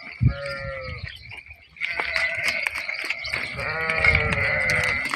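Sheep bleating: a short call near the start and a longer one about four seconds in, over a steady high-pitched whine that sets in about two seconds in.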